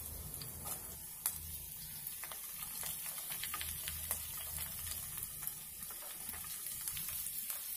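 Chopped onion, garlic and dried red chillies sizzling in hot soybean oil in a kadai as they are added, with many small pops and crackles throughout.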